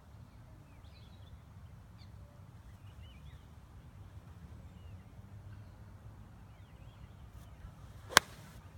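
Birds chirping faintly, then about eight seconds in a single sharp crack of a golf club striking the ball off the tee.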